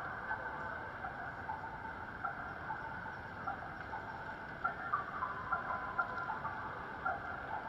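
Electronic bird-call chirps from Japanese pedestrian crossing signals, sounding over and over and overlapping irregularly while the walk light is on, over a steady hiss of street and crowd noise.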